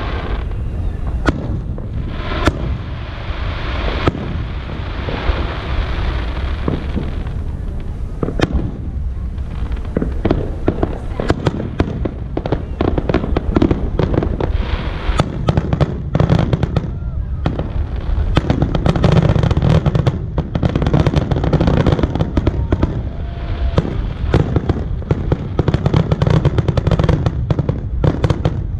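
Aerial fireworks going off in a barrage of bangs and crackles. The bursts come faster and thicker from about ten seconds in.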